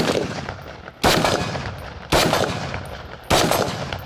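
A rifle fired at an outdoor range, four sharp shots about a second apart, each trailing off in a long echo.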